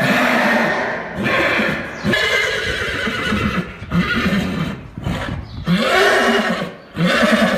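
Horse whinnying, several loud calls in a row with short breaks between them.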